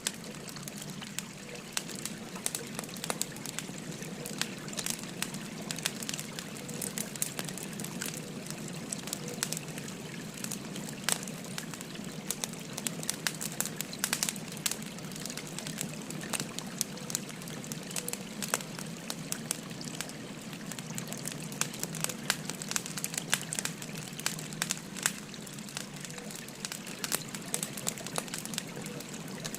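Wood fire crackling, with frequent sharp pops and snaps scattered throughout, over the steady babble of flowing river water.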